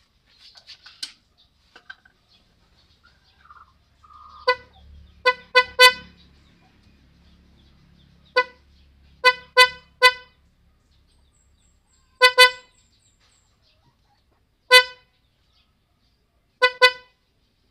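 Scooter's electric horn giving short toots, singly and in quick runs of two or three, about a dozen in all. The horn is wired to sound with the headlight passing-light switch.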